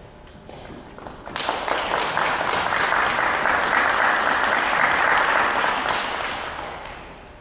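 Audience applauding in a concert hall, starting about a second and a half in, swelling, then dying away near the end.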